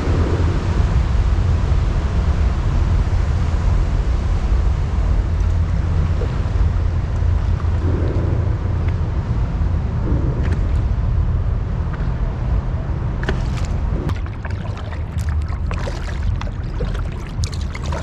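Kayak moving on a lake: water lapping at the hull over a steady low rumble, with paddle splashes and drips in the last few seconds.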